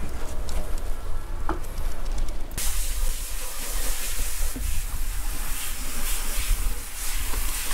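Wind buffeting the microphone with a fluctuating low rumble. A steady hiss cuts in abruptly about two and a half seconds in.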